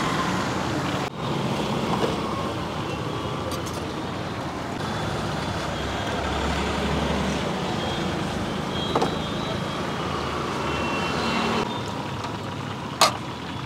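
Steady roadside traffic noise, with a sharp click near the end.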